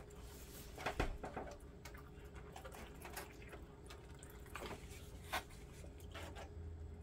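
Dye squirted from a plastic squeeze bottle onto scrunched-up wet fabric in a foil pan: faint squelches and a few soft clicks spaced through it, over a low steady hum.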